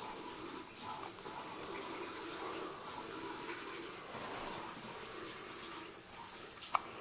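A steady rushing noise, like running water, with one short sharp hiccup near the end.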